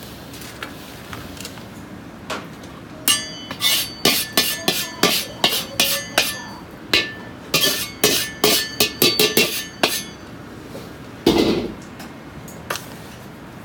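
Metal wok ladle clinking and knocking against an iron wok and a stainless steel tray, about twenty sharp ringing strikes over some seven seconds, as roasted seasoning salt with Sichuan peppercorns and star anise is scooped and tipped out. A short rush of pouring salt follows near the end.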